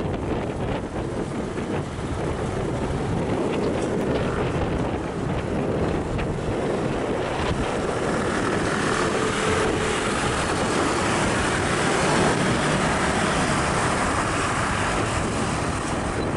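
Steady wind noise on the microphone over passing street traffic.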